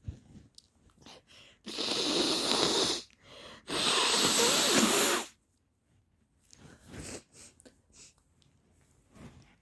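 A person with a stuffy head cold blowing her nose hard into a handkerchief, twice, each blow lasting over a second, with faint sniffles before and after.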